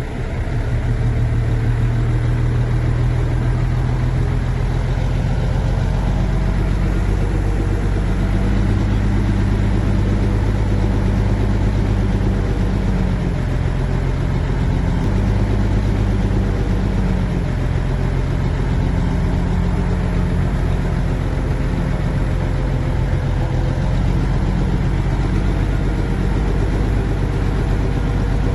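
Heavy diesel engine of a Shantui bulldozer running steadily, growing louder just after the start and shifting slightly in pitch about halfway through.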